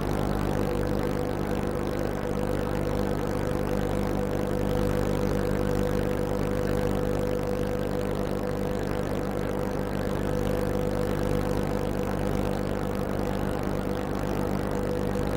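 A boat's engine running steadily at constant speed: an even drone with a steady hum over it.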